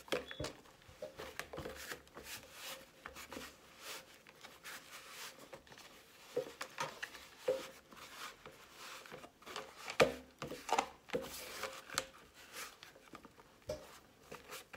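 Hands kneading a soft flour-and-water dumpling dough in a plastic container: irregular soft pats, squishes and rubs of the dough against the plastic, with a louder thump about ten seconds in.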